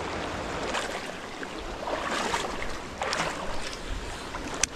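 Fast-flowing river water rushing past, its noise swelling and easing every second or so. A single sharp click comes near the end.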